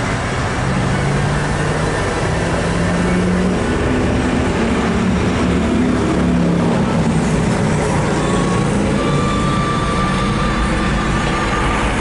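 Union Pacific GE GEVO diesel locomotive approaching at the head of an empty coal train, mixed with road traffic: a steady engine-and-tyre rumble. About eight seconds in, a thin, steady high tone comes in.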